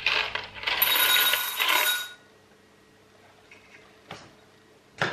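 Jelly beans poured from a box into a pressed-glass bowl, clattering against the glass for about two seconds while the bowl rings. Two light taps follow later.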